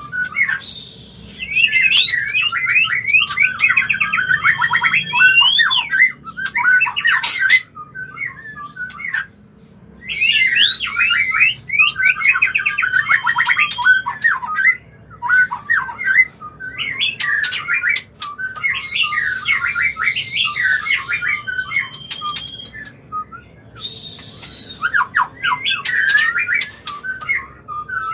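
White-rumped shamas giving mating song and calls: bouts of rapid, varied whistles and chattering notes, broken by short harsh hissing calls, coming again every few seconds.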